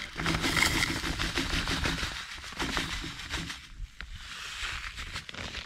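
Dry couscous and dried cranberries pouring from a plastic zip-top bag into a small metal camping pot, a dense patter of grains against the metal with the bag rustling. It thins out to scattered ticks in the last couple of seconds.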